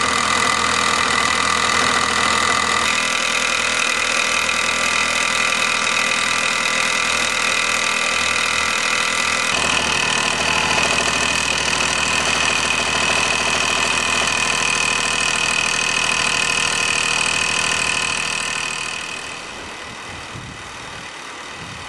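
Mamod Minor 1 toy steam engine, a single oscillating cylinder on a disc crank, running fast with a steady, rapid buzzing beat. The sound drops to a lower level about nineteen seconds in.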